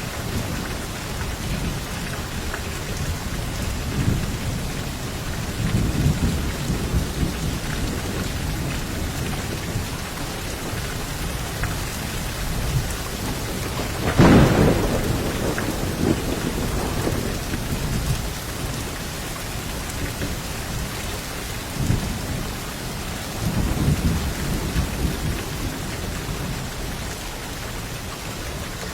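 Steady rain during a thunderstorm, with low rolls of thunder swelling and fading, and one louder, sharper thunderclap about halfway through.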